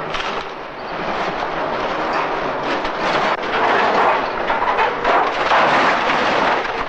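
Scrapped car bodies crunching and clanging as a crane's grab crushes and lifts them: a dense, loud run of metal crashes and grinding.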